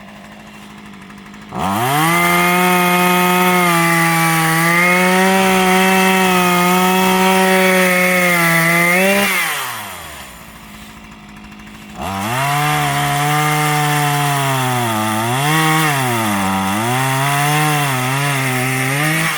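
Gas chainsaw revved to full throttle about a second and a half in and held for several seconds, then dropping back to idle. It is revved again about halfway through, its pitch dipping and recovering several times as it bites into the wood.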